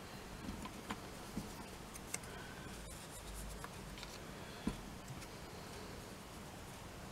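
Faint rubbing and light tapping of a small ink blending tool on paper circles as ink is worked onto them, with a few soft separate ticks and a low handling bump near the middle.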